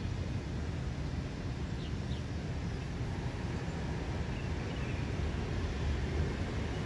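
Steady low outdoor rumble, with a few faint bird chirps about two seconds and four and a half seconds in.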